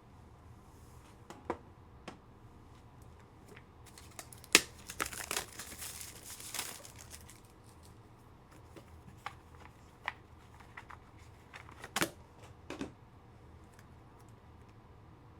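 A trading-card pack wrapper being torn open and crinkled, with sharp clicks and taps of cards and plastic holders being handled. The loudest click comes about four and a half seconds in, followed by about two seconds of crackly tearing and crinkling, then scattered lighter clicks.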